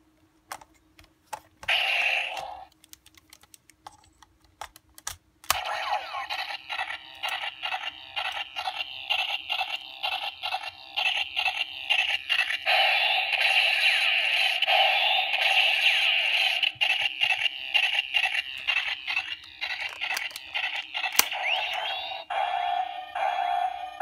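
Kamen Rider Fourze DX Elek power stick toy playing its electronic sound effects: a long, rapid stuttering run of electronic pulses and tones starting about five seconds in. Before that, a few sparse plastic clicks from handling the toy.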